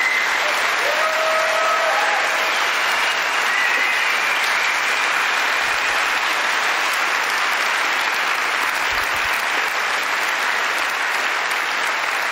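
Large lecture-hall audience applauding steadily and at length.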